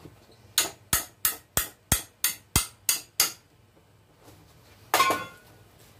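A metal bar, used in place of a hammer, tapping nine times in quick succession, about three a second, on the oil drain plug of a single-cylinder lawn tractor engine to loosen it. A single louder metal clank follows about five seconds in.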